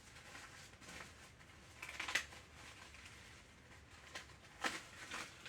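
Faint handling noises on a workbench: a few light clicks and rustles, the loudest about two seconds in and again near the end.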